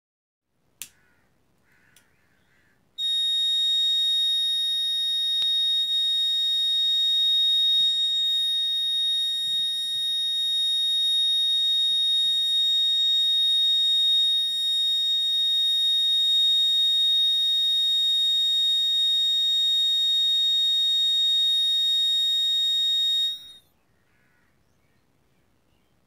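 Piezo buzzer of a home-made flame-sensor fire alarm sounding one steady, shrill high-pitched tone: the sign that the flame sensor has detected the burning paper in front of it. It switches on abruptly about three seconds in and cuts off abruptly about twenty-three seconds in, after a single click about a second in.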